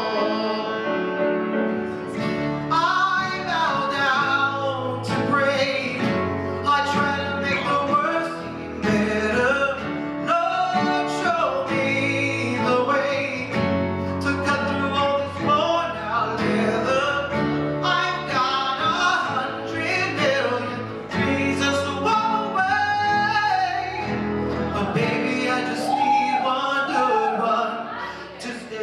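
Live band music: a man singing into a microphone over acoustic guitars, bass guitar and piano, the voice coming in about two seconds in.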